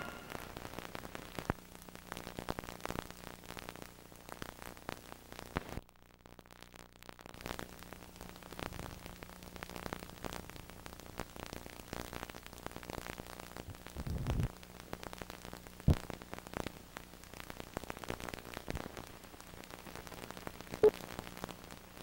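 Crackle and hiss of an old film soundtrack running over blank leader, with a few sharp pops and a faint steady hum.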